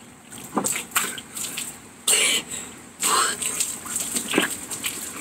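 Milk pouring out of an upended plastic gallon jug and splashing over a person's face and chest, in a string of irregular splashes, with coughing as it runs into his mouth.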